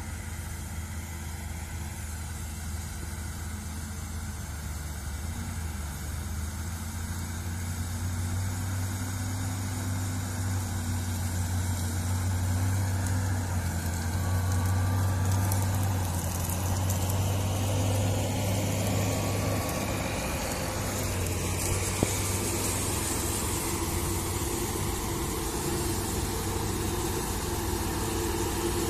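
Claas Lexion combine harvester and a New Holland tractor pulling a grain trailer at work in the field: a steady diesel engine drone with a low hum. It grows louder through the middle as the tractor comes close, and there is one sharp click a little past two-thirds of the way.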